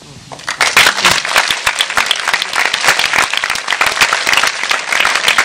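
Audience applauding: hand claps start about half a second in and quickly build into dense, sustained applause.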